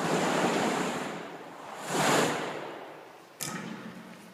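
A large trash can's contents being dumped into a bucket loaded for a liquid-nitrogen ping pong ball blast: a loud rushing pour that swells again about two seconds in, then fades. A single sharp knock comes near the end.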